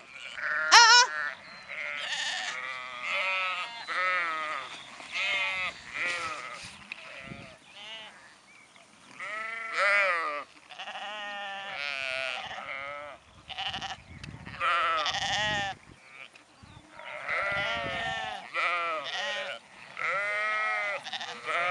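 A flock of sheep, ewes and lambs, bleating: call after call, often overlapping, with short lulls between.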